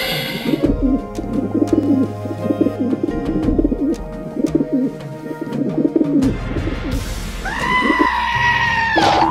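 Soundtrack music with a string of short, wavering animal-like calls over it, and a longer, higher drawn-out call in the last third.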